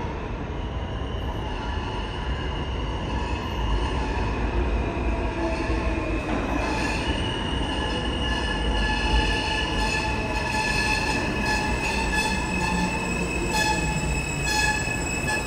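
New York City Subway R160 train pulling into the station off a curve, its wheels squealing in steady high tones over the low rumble of the cars. The sound grows a little louder as it nears.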